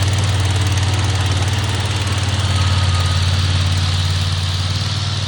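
Briggs & Stratton engine of a remote-controlled flail mower running steadily, a loud even low hum that gets a little quieter near the end.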